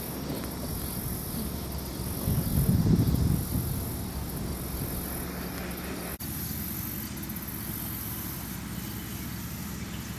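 Tractor engine running steadily under a constant chorus of insects chirping, with a louder swell of the low hum about two to three seconds in.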